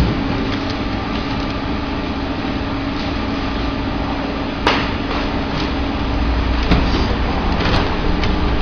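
Shrink-wrap packaging machine for bottled water running with a steady hum, broken by a few sharp clacks, the loudest about halfway through.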